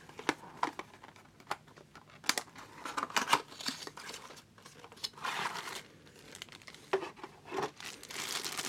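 Hands handling a cardboard box, with scattered light knocks and rustles, then a clear plastic bag crinkling more steadily near the end as it is lifted out.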